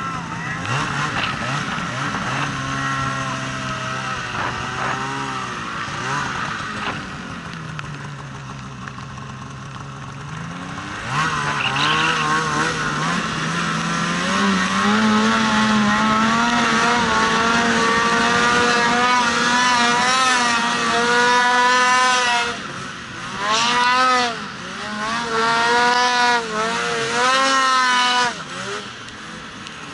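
Polaris RMK Khaos 850 snowmobile's two-stroke engine pulling through deep powder. It runs at lower revs for about the first ten seconds, then revs up and holds high, with the throttle let off briefly three times near the end.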